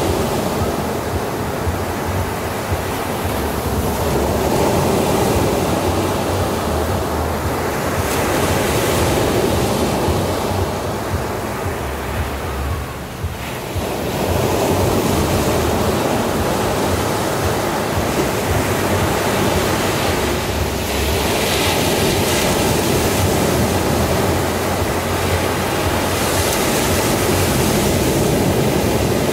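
Ocean surf: waves breaking and washing up the beach in a continuous rush that swells and eases. It dips briefly a little before the middle, then builds again.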